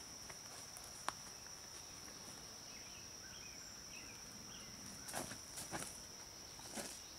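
Steady high-pitched insect drone in summer woodland, with one short sharp click about a second in. Near the end come a few brief rustles of footsteps on the leafy dirt tee.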